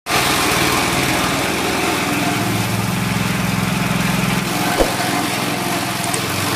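Forage chopper driven by a 6.5 hp petrol engine, running steadily under load while dry corn stalks and straw are fed in and chopped. A single knock sounds just under five seconds in.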